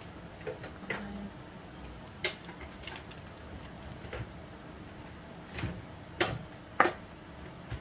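Irregular light clicks and knocks as a small glass bottle is handled and set down on a kitchen counter. The loudest knock comes near the end.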